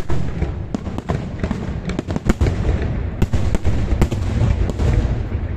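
Aerial fireworks display: many sharp shell bangs in quick, irregular succession over a steady low rumble.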